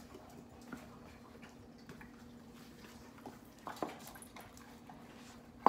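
A few soft clicks and knocks, then near the end one sharp, loud clank as a stainless steel dog bowl is set down on a tile floor, over a faint steady hum.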